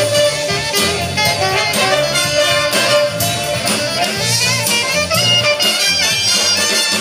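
Youth big band playing jazz live, with saxophones and brass over a bass and drum beat.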